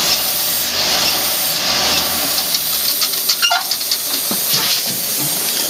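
1947 GMC half-ton pickup's engine running just after being started, heard from inside the cab as a steady hissing noise with a low rumble, and a few light clicks in the second half.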